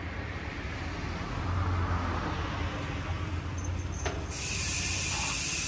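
Freewheel of an ARC MT-009 mountain-bike rear hub. A low rumble comes first; a little over four seconds in, a loud, steady, high-pitched buzz of the hub's ratchet starts and holds, the sound of the wheel coasting.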